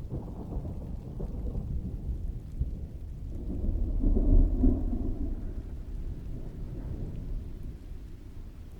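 Distant thunder rolling over steady rainfall: a deep rumble that swells to its loudest about four seconds in and then slowly fades.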